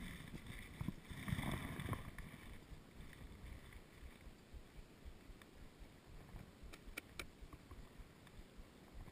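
Faint, low wind rumble on the microphone, with a louder patch about a second in and two quick light clicks about seven seconds in.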